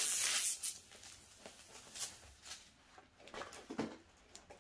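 Clear plastic cover film being peeled off the tacky poured glue of a diamond painting canvas: a crackling, tearing hiss for the first half second or so, then faint crinkles and rustles of the plastic sheet and canvas being handled.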